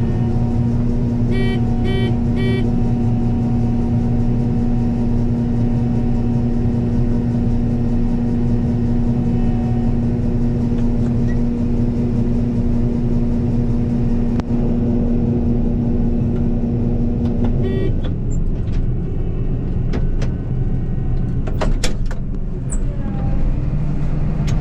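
Combine harvester running with a steady droning hum. Three short electronic warning beeps sound about a second in. Near the last quarter another beep comes as the steady hum drops away, followed by a few clicks and knocks.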